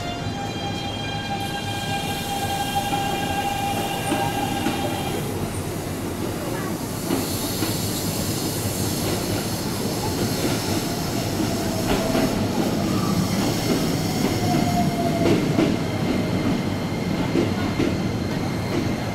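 Keikyu 1000 series electric train running, its Siemens inverter and traction motors giving a steady whine with several higher overtones for the first five seconds. Then comes the rushing wheel and rail noise of trains moving through the station, with brief faint squeals about twelve and fifteen seconds in.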